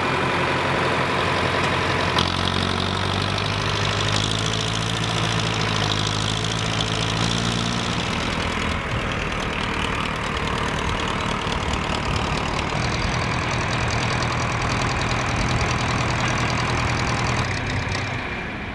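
Farm tractor engine running steadily as the tractor drives across the field, its pitch shifting a few times, then quieting near the end as it pulls up.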